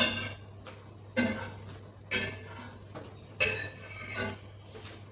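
A metal utensil clinking against cookware: five sharp clinks, each with a short metallic ring, about a second apart.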